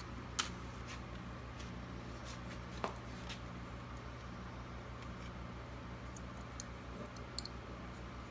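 A few small sharp clicks and taps as cable wires are pressed into the slots of an RJ45 keystone jack, over a steady low electrical hum. The two loudest clicks come just under half a second in and near the three-second mark, with lighter ticks toward the end.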